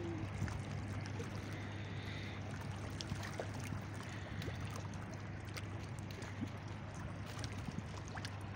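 Steady low engine drone from the creek, with a faint wash of water and a few small clicks.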